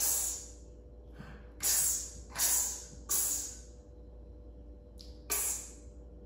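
A man saying the phonics sound 'kss' for the letter x over and over, very fast: short hissing bursts, several in quick succession, a pause, then a couple more near the end.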